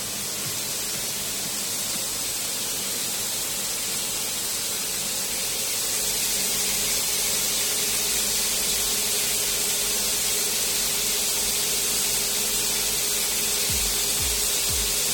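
A steady hiss with a faint steady hum underneath, a little louder from about six seconds in; low, regular thuds start near the end.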